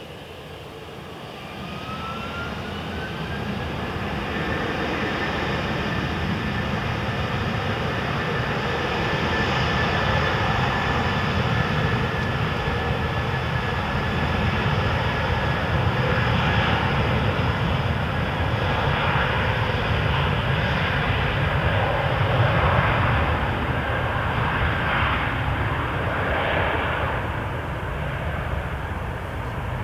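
Airbus A330-203's General Electric CF6-80E1 turbofan engines spooling up to take-off thrust: a rising whine over the first few seconds, then a steady, loud jet-engine sound through the start of the take-off roll.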